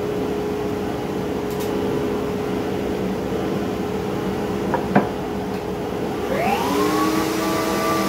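A steady machine noise, like a shop dust extractor, runs throughout, with a sharp knock about five seconds in. Near the end a router motor is switched on and spins up with a rising whine, then settles into a steady high-pitched run.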